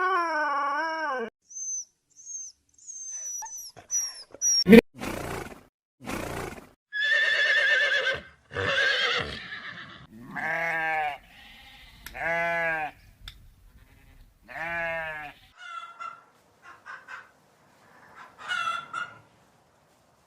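A run of different farm animal calls, one after another: a few high chirps near the start, a sharp click, then three long wavering bleats around the middle, followed by shorter scattered calls.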